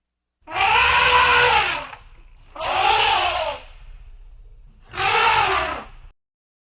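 Elephant trumpeting: three loud blaring calls about two seconds apart, each rising and then falling in pitch.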